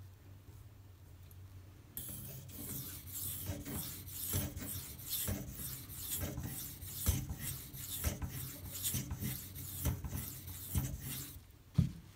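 K390 steel knife blade stroked on a wet 2500-grit silicon carbide water stone: a run of repeated scraping strokes that starts about two seconds in and stops near the end. A single sharp knock follows just before the end.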